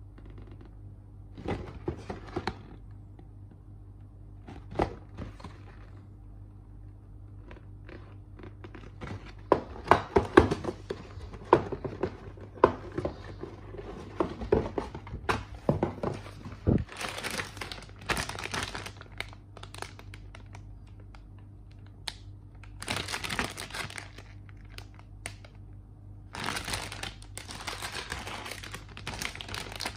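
Cardboard plastic-model-kit box being handled and opened: scattered knocks and taps, then a busy run of louder knocks. Clear plastic bags holding the kit's runners are then crinkled in several stretches of a second or two near the end.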